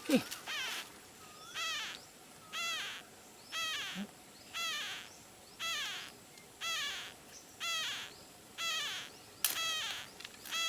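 Parrot chick calling over and over, about one short arching call a second in a steady rhythm.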